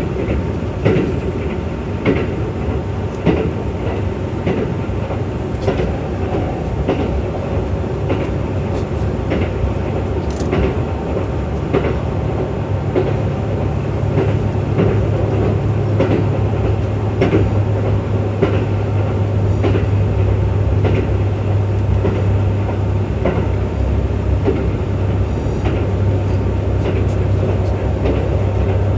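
Kintetsu Urban Liner Plus limited express running at speed, heard inside the carriage: a steady rumble of wheels on rail with frequent clicks from the rail joints, and a low hum that grows stronger about halfway through.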